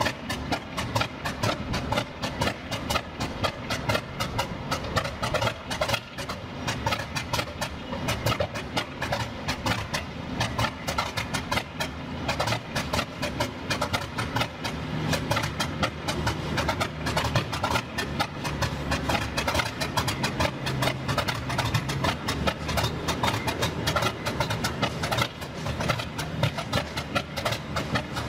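English Electric 16CSVT V16 diesel of a BR Class 50 locomotive idling steadily just after a cold start, a rapid, even throbbing beat.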